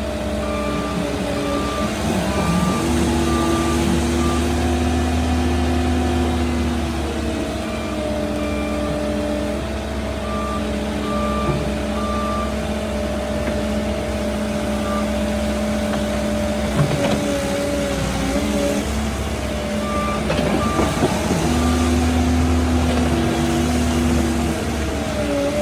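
Cat 308 mini excavator's diesel engine running with the load changing as the hydraulics work. A repeating alarm beeps steadily in three spells: near the start, in the middle and again later.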